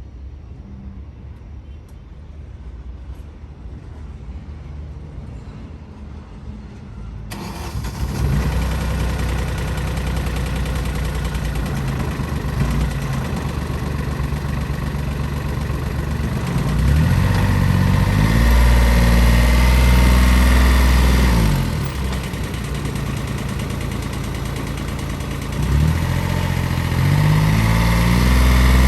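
2014 Polaris Ranger side-by-side's engine starting about a quarter of the way in and idling. It is then revved up and held at higher revs twice, dropping back to idle in between.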